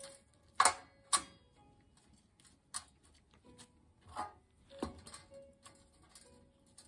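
Scattered knocks and taps while potting soil is pushed into a terracotta pot around an aloe vera and a plastic bowl is tipped against it: two sharp knocks about half a second apart near the start, then fainter taps every second or so.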